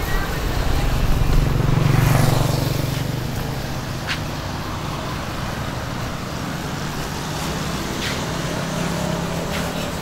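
Portable motorcycle-wash water pump running with a steady hum while its spray gun jets water, under a constant hiss. A passing vehicle swells louder about one to three seconds in.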